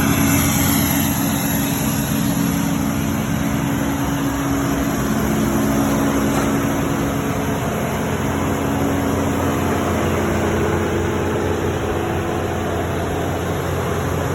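A vehicle engine idling steadily, a continuous low hum with no revving.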